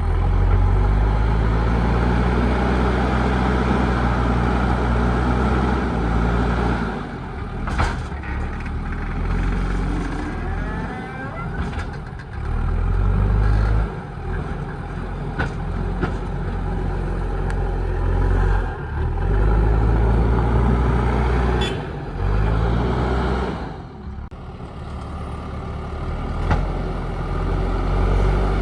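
JCB 3DX Super backhoe loader's diesel engine working under load, its note rising and dropping back several times, with a few sharp knocks along the way.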